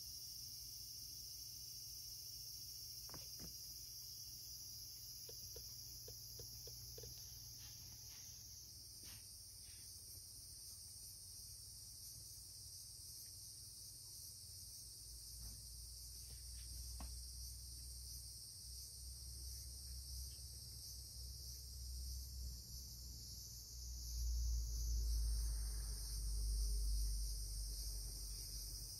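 Steady, high-pitched chorus of insects, with a few faint clicks and a low rumble that swells near the end.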